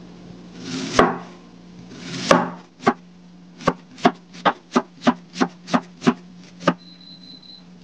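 Kitchen knife slicing a peeled nagaimo (Chinese yam) on a wooden cutting board. First come two slow cuts, each drawn through the yam and ending in a knock on the board. Then comes a quick run of about ten slices, a little under three a second.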